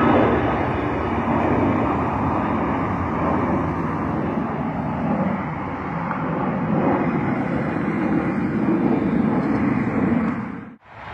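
Jet airliner's engines passing overhead: a loud, steady rumble with a whine that falls in pitch over the first second or two. The sound cuts off abruptly near the end.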